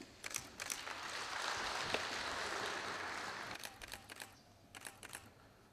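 Camera shutters clicking in quick runs, with a short round of applause that swells and fades in the middle.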